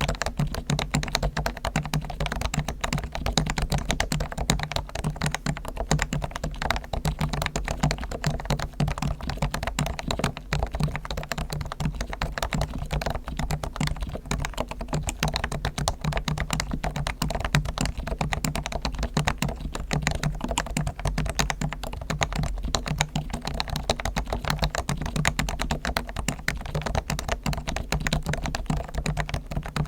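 Realforce R1 Topre electrostatic-capacitive keyboard typed on quickly and continuously, a dense run of soft key strokes. Its springs and sliders are lubed with Krytox, the stabilisers are lubed and tuned, and the case is dampened with foam.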